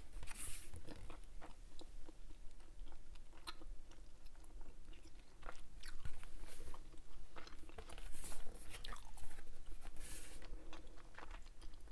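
Close-miked chewing of Hubba Bubba bubble gum: irregular wet smacks and clicks of the mouth working the gum.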